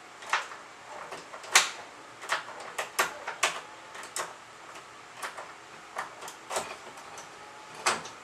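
Door lockset hardware clicking and knocking as the lock is handled and fitted into the door: irregular sharp metal-and-wood clicks, one or two a second, the loudest about one and a half seconds in and again near the end.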